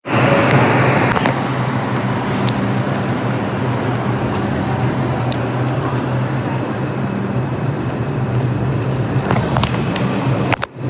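Loud, steady subway-station hum and rumble with a low drone, from a stopped train and the station around it, with a few faint clicks over it. The sound drops out briefly near the end.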